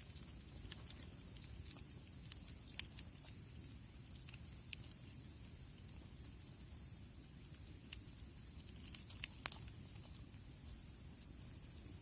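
Wood campfire crackling: scattered sharp pops and snaps, a couple louder near the end, over a steady high hiss.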